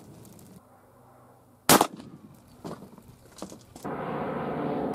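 .50 caliber muzzleloader rifle firing one shot about two seconds in, loaded with a saboted .38 caliber cast lead bullet over Pyrodex; the report is sharp and dies away quickly. A few faint clicks follow, a steady rushing noise comes up near the end, and another shot cracks right at the end.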